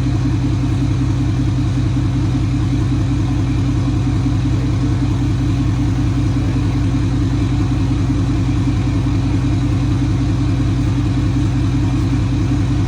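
Ford F-250 Super Duty's 6.7-litre Power Stroke V8 diesel idling steadily.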